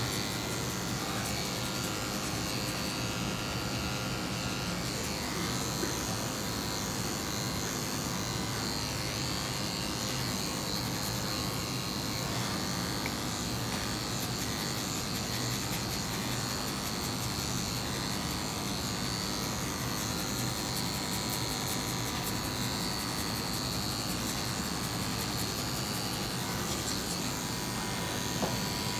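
Corded electric dog-grooming clipper running steadily as it shaves through a dog's matted coat, a continuous even buzz.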